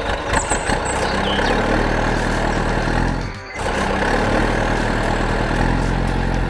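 Heavy vehicle engine running steadily, the sound of a truck or tractor under way, dipping briefly about three and a half seconds in before carrying on.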